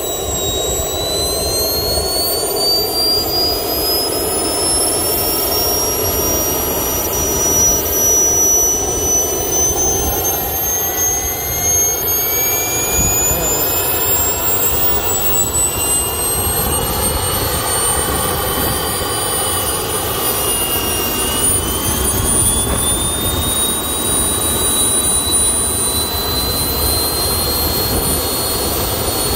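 Three small turbojet engines running together: a loud rushing roar with several high-pitched turbine whines at different pitches, slowly rising as the engines settle after start-up.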